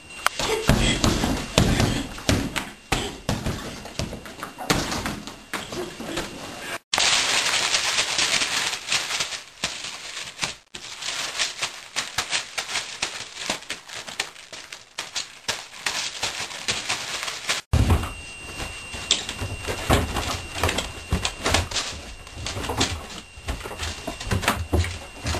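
A run of irregular thumps, knocks and bangs from someone thrashing about and hitting things in a small room. The sound changes abruptly three times, with a stretch of steady hiss in the middle.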